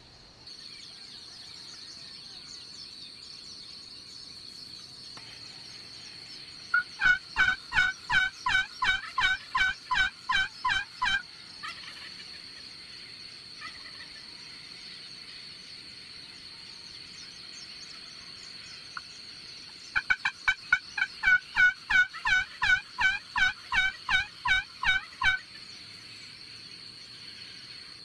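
Turkey yelping: two loud runs of rapid calls, about four notes a second, each lasting four to five seconds, the second run starting about twenty seconds in. A steady high insect trill runs underneath.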